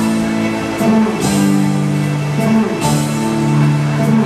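Music with guitar playing over loudspeakers, its held chords changing about every second and a half.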